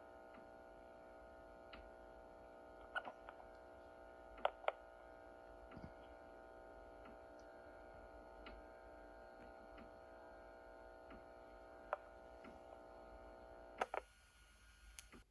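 Faint steady electrical hum with a few soft clicks and ticks, cutting out near the end.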